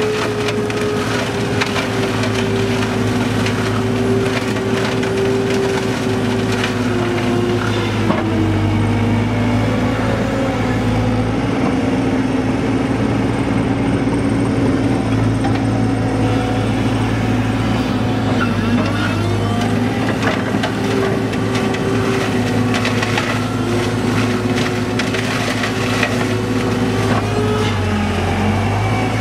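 Excavator-mounted forestry mulching head shredding brush and small branches. The machine drones steadily, its pitch sagging and recovering as the rotor takes load, with constant crackling and splintering of wood being chipped.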